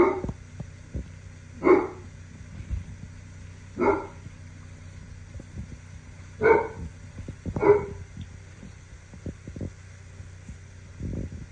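3-week-old Cane Corso puppy giving five short barks, one to two and a half seconds apart.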